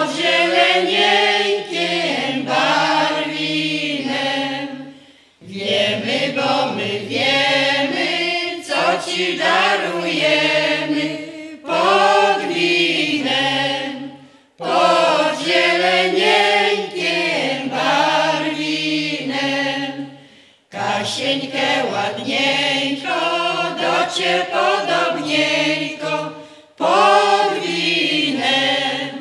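Folk vocal ensemble, mostly women's voices with some men's, singing a Polish folk song unaccompanied, in phrases of several seconds broken by short pauses for breath.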